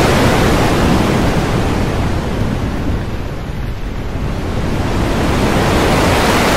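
Thunderstorm: a loud, rushing roar of storm noise that eases about halfway through and swells again near the end.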